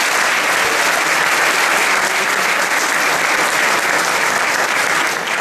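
Audience applause, steady dense clapping from a full hall, with the performers on stage clapping along.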